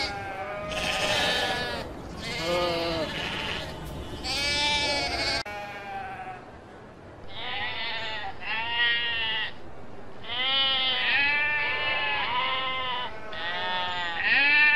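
Sheep bleating again and again, wavering calls, some lower-pitched and some higher, with a short lull about six to seven seconds in.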